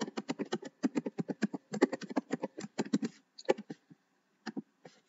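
Typing on a computer keyboard: a fast, uneven run of key clicks for about three seconds, then a few scattered single keystrokes.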